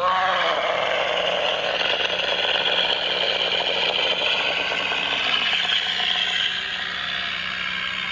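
Sound-effect call of a Shantungosaurus, a hadrosaur: a long, harsh, rasping call. It starts suddenly with a brief rising pitch, holds for about six seconds, then eases a little.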